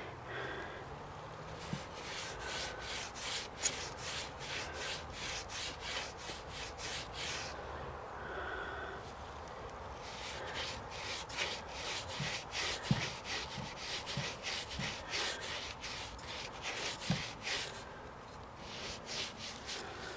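A paintbrush being worked over dried paper mache, a quick run of scratchy back-and-forth strokes at about three a second. The runs stop briefly twice as the brush is reloaded or moved.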